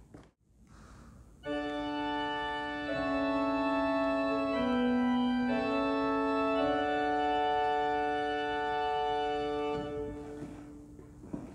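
Church organ playing a short interlude of sustained chords. It enters about a second and a half in, moves through several chord changes, and dies away near the end.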